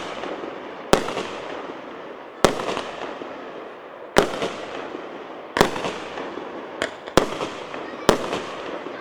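A 138-shot 1.2-inch fireworks cake firing: sharp bangs about every one to one and a half seconds, some seven in all, with crackling hiss fading between them.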